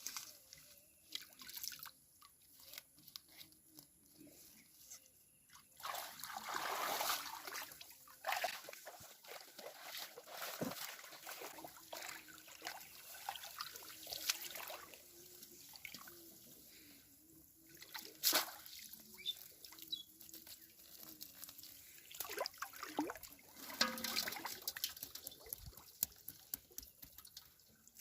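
Water trickling and dripping, with irregular splashes and small knocks; louder sloshing surges come a few times.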